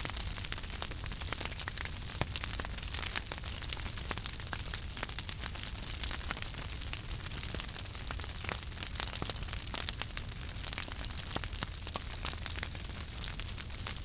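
Wood fire crackling: a steady hiss with many sharp, irregular pops and snaps over a low rumble.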